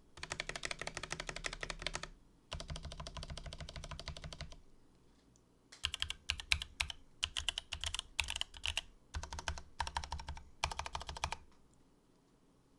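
Typing on a custom keyboard with Cherry MX Black Hyperglide linear switches on an FR-4 plate in a hollow 3D-printed PLA case, which sounds quite resonant. First come two fast, even runs of keystrokes, then a short pause, then uneven bursts of typing that stop about a second before the end.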